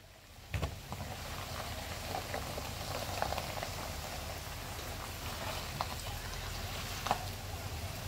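Shallow creek water rushing steadily over rocks, with small splashes, as a heavy pickup truck drives into the ford. The truck's engine makes a low rumble underneath.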